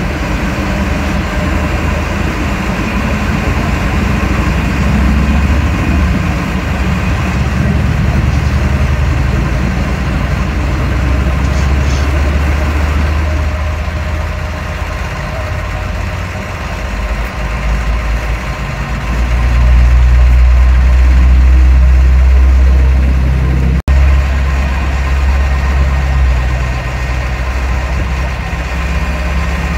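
Kenworth T360 tow truck's diesel engine running steadily at idle while it drives the tilt tray's winch, getting louder for a few seconds about two-thirds of the way through.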